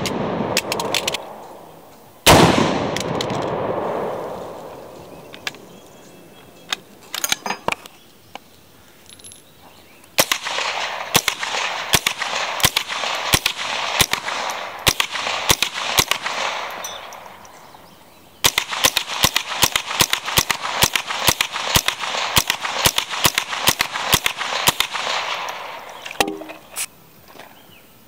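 A .50 BMG rifle fires one heavy shot about two seconds in, its report dying away over a couple of seconds. It is followed by a few single shots, then two long strings of rapid semi-automatic fire from a 5.56 mm AR-15 rifle, about two to four shots a second.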